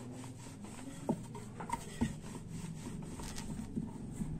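Wooden rolling pin rolling out a ball of rice-flour dough on a wooden board: faint rubbing with a few light knocks.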